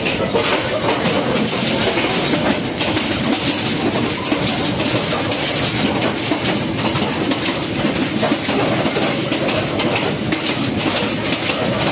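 Passenger train running, its wheels clattering steadily over the rail joints, heard from aboard a carriage.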